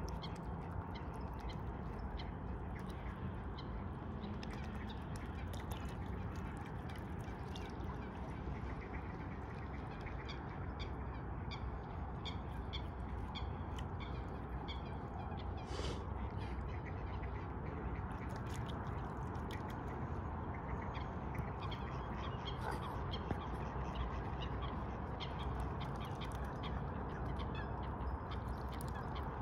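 Waterfowl feeding at the water's edge, mute swans and Canada geese among them: scattered short calls and clicks over a steady rushing background of wind and water.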